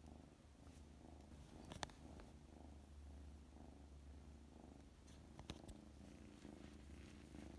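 Tabby kitten purring softly and steadily, a contented purr. Two faint clicks, about two and five and a half seconds in.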